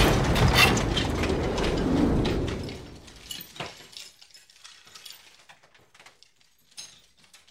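A loud rumble that dies away over about three seconds, followed by faint, scattered mechanical clicks and rattles.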